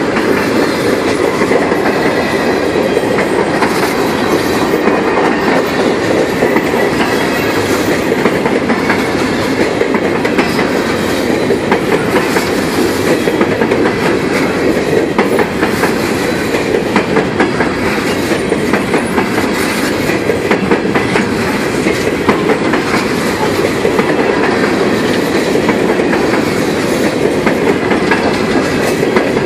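Empty coal hopper cars of a freight train rolling past close by: a steady, loud rumble of steel wheels on the rails, with a running clatter of clicks from the wheels over the track.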